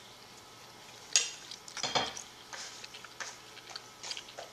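A utensil scraping and clicking in a bowl of rehydrated rice and chicken: a few short scrapes and clicks, the loudest about one and two seconds in, then fainter ticks.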